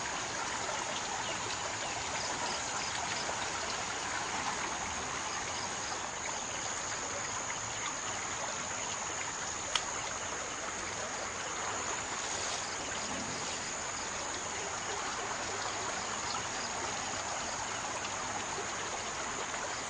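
Steady rushing of floodwater in the swollen Daduru Oya river, an even hiss-like flow with no pauses. A single sharp tap about ten seconds in.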